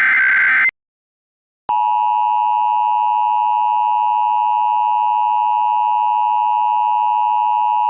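Emergency Alert System header tones: the last burst of the buzzy, screeching digital header ends just under a second in. After a second of silence, the steady two-tone EAS attention signal starts and holds unchanged.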